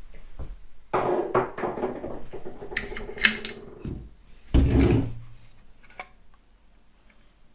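Metal parts of an AR-15 rifle being handled: a sliding scrape with clicks, then one heavy clunk and a last click, as the opened-up receiver and bolt carrier are worked.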